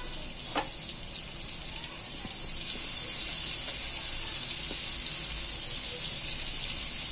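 Oil and melting butter sizzling on a hot flat griddle pan as cubes of paneer are set into it; the sizzle grows louder about three seconds in. A brief click about half a second in.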